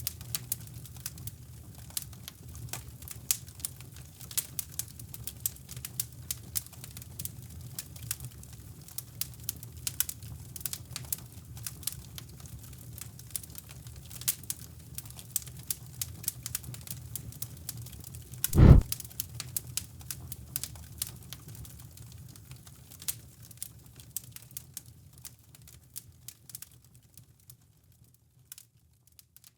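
Fireplace fire crackling, with dense sharp pops over a low rumble. One loud low thump about two-thirds of the way through, then the sound fades out near the end.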